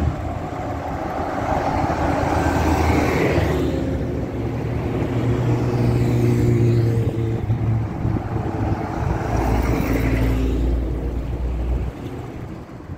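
Road traffic on a multi-lane avenue: cars and a city bus driving by, with two passing swells about three and ten seconds in and a low engine hum through the middle.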